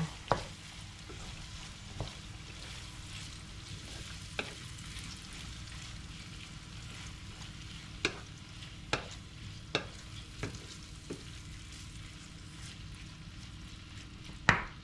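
Chopped meat frying and sizzling steadily in a pan while a wooden spatula stirs it, with the spatula knocking and scraping against the pan now and then, most sharply near the end.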